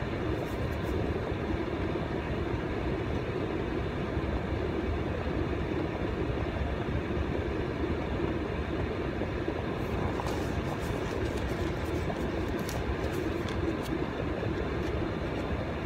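Steady low rumble inside a car's cabin from its engine running.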